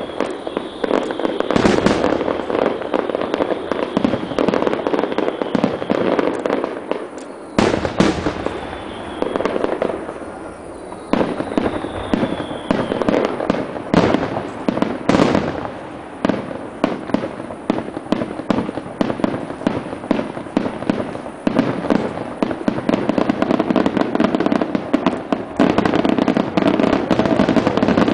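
Aerial firework shells bursting in quick succession, a dense barrage of bangs and crackle with a brief lull about ten seconds in. A thin falling whistle sounds twice, near the start and about twelve seconds in.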